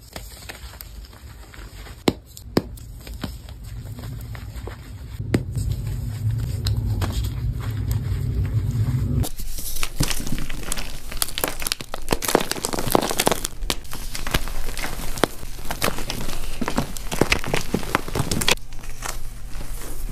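Dyed gym chalk crushed and crumbled in the hands. At first it is soft dusty crumbling with a few sharp cracks. About nine seconds in, it turns into dense, steady crunching as firmer blocks are squeezed apart.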